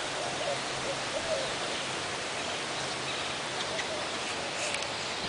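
A bird giving low calls, faint, in two spells, over steady outdoor background hiss.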